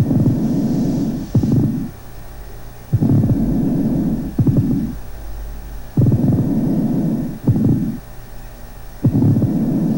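Pleural friction rub on a chest auscultation recording from a patient with tuberculous pleurisy: a rough, rasping rub with each breath, in both inspiration and expiration. It comes as a longer rub followed by a shorter one, repeating about every three seconds, and is the sign of inflamed visceral and parietal pleura rubbing together.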